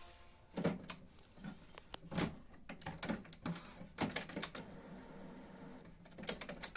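HP Officejet 7612 inkjet printer mechanism powering down, giving irregular clicks and knocks a few times a second. The printer is showing a carriage jam error.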